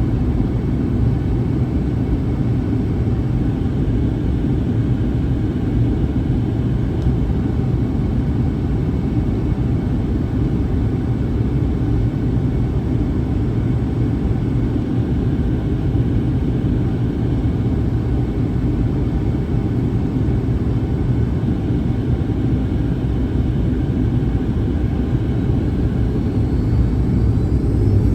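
Steady low drone inside the cabin of a Boeing 737-800 in flight: its CFM56 turbofan engines and the airflow over the fuselage. The level rises slightly near the end.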